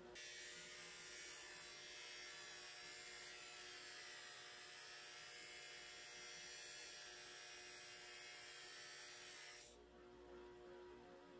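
Bench grinder with a buffing wheel humming steadily while a thin metal rod is held against the spinning wheel, giving a steady hiss of buffing that cuts off near the end as the rod comes away.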